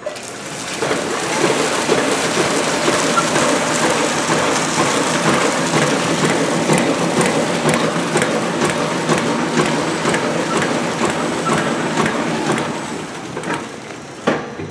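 Flow-wrapping packaging machine running close up: a loud, dense, rushing crackle with faint regular clicks a few times a second. It builds up about a second in and eases off near the end.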